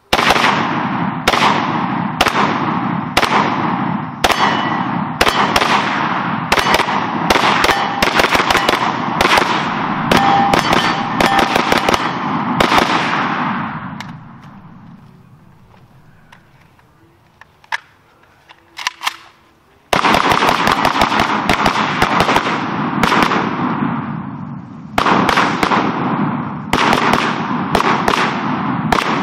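Saiga AK semi-automatic rifle in 7.62x39 firing fast strings of shots, each a sharp crack. About halfway through the firing stops for several seconds with only a couple of faint clicks, then rapid shooting starts again.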